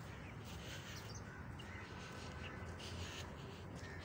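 Faint cawing of crows over a low, steady outdoor background.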